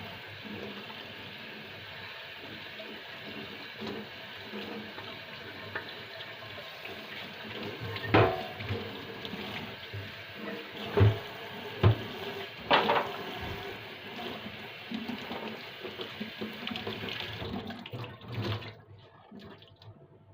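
Tap water running into a kitchen sink, with four sharp knocks of items against the sink partway through; the water stops near the end.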